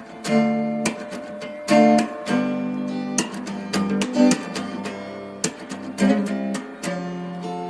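Acoustic guitar music: strummed chords, with sharp strokes about once a second between ringing chords.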